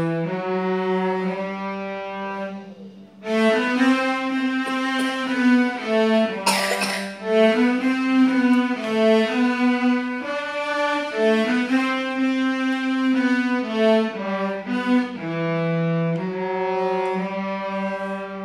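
Several cellos, played by a teacher and young students, bow a simple melody together in separate held notes. The playing breaks off briefly about three seconds in. A short noisy burst comes about six and a half seconds in, and the passage ends on a long held note.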